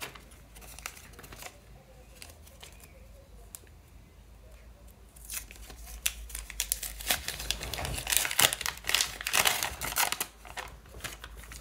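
Paper and sticky tape crinkling and tearing as a handmade grid-paper surprise packet is pulled open by hand. It is faint handling at first, then dense crackling from about halfway through that stops shortly before the end.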